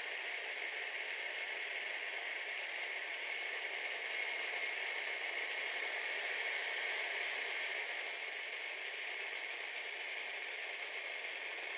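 Steady hiss of a homemade used-oil stove's burner flame under a lidded pot of water being heated.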